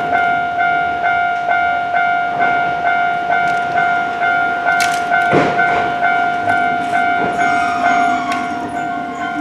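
Japanese level-crossing warning bell ringing, an electronic ding that repeats about twice a second. A knock sounds about five seconds in, and near the end rail-vehicle noise with gliding whines joins the bell as a tram nears or crosses.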